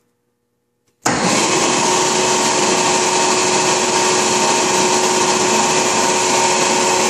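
W.F. Wells W-9 horizontal band saw switched on at its push button: the motor starts suddenly about a second in and then runs with a loud, even whir and a steady hum.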